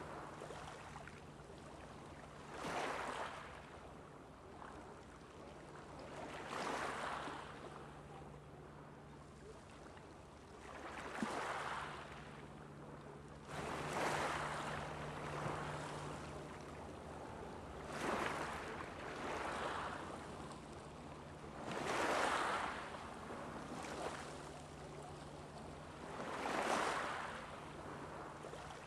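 Small ocean waves washing onto a beach, a swell of surf every four seconds or so over a steady wash, with a steady low hum underneath.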